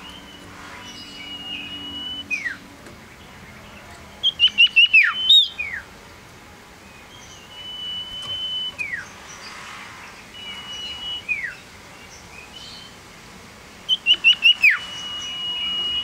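Male common iora (cipoh) singing: a long, level, high whistle ending in a falling slur, repeated several times. Twice it gives a quick run of about five sharp notes, the loudest sounds.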